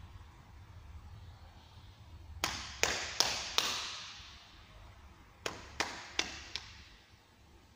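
Two sets of four sharp slaps, evenly spaced and a little under half a second apart, the second set about two seconds after the first, each ringing out in a large echoing hall.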